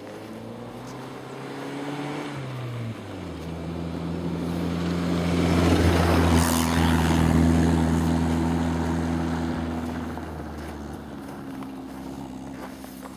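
A motor vehicle driving past. Its engine note climbs, drops at a gear change about three seconds in, then engine and road noise swell to their loudest around the middle and fade away.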